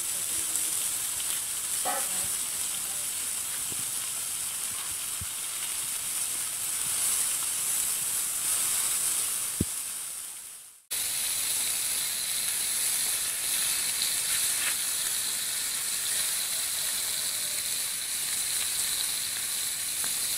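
Marinated snakehead fish pieces sizzling steadily as they shallow-fry in hot oil in a pan. The sizzle fades and cuts out briefly about halfway through, then comes back at the same level.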